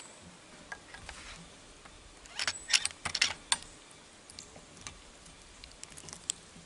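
A short cluster of sharp clicks and light rattling about two and a half to three and a half seconds in, with scattered faint ticks before and after.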